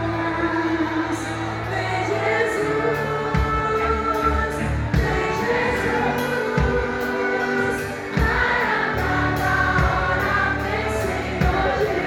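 Live worship band and a group of singers performing a Christian worship song: voices singing together in long held notes over bass, a steady drum beat and cymbals.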